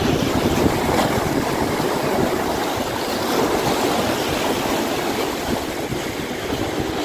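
Waves washing and breaking against the boulders of a rock breakwater: a steady rushing surf.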